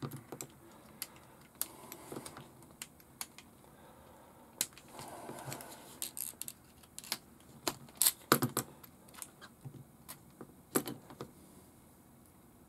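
Irregular small clicks and taps of hard plastic and metal parts being handled and fitted on an RC model car's wheel upright, with a brief soft rustle near the middle; the loudest cluster of clicks comes about eight seconds in.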